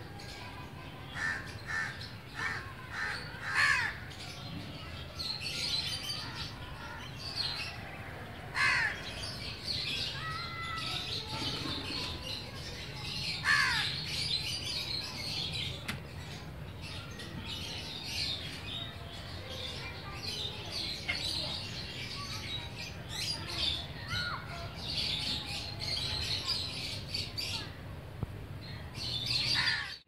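House crows cawing now and then, the loudest caws about four, nine and fourteen seconds in, each falling in pitch, over continual chirping of smaller birds and a steady low hum.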